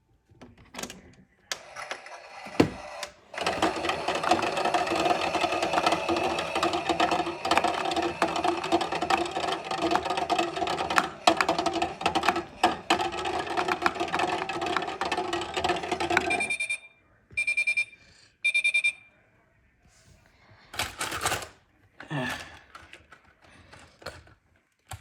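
Battery-powered toy washing machine running a wash cycle: a small motor hums steadily with rattling from the drum for about thirteen seconds, then stops suddenly. Three short high beeps follow, marking the end of the cycle.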